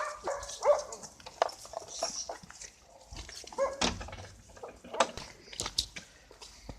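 A dog barking a few short times, with pauses between the barks.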